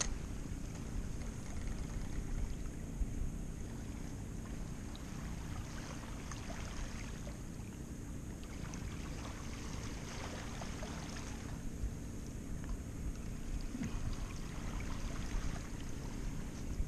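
Small waves lapping and washing over a stony shoreline, swelling and fading every few seconds, over a steady low rumble.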